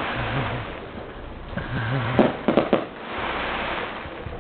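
Distant fireworks going off: swells of rushing noise, with a few sharp pops a little after two seconds in.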